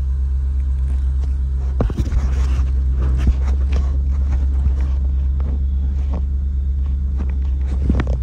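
26-foot U-Haul box truck driving along, heard from a rider clinging to its outside: a steady low rumble with a few knocks and rattles.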